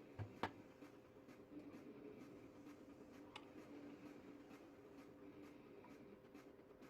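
Near silence: two sharp clicks in the first half second, then faint scattered ticks over a low steady hum.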